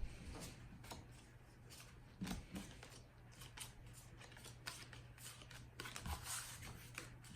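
Trading cards handled by hand, with faint, irregular clicks and rustles of cards sliding and being flipped over a steady low electrical hum.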